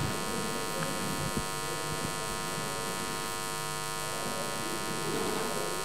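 Steady electrical buzz with many overtones, the hum of the microphone and sound-system line.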